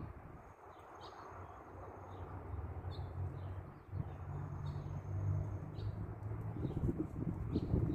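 Small birds chirping outdoors: short, high calls repeating roughly once a second, over a low, steady background hum.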